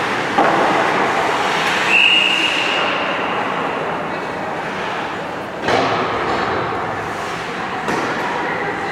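Ice hockey rink game noise: a steady scraping wash of skates on the ice, with three sharp clacks or bangs of stick, puck or boards spread through it and a brief high whistle about two seconds in.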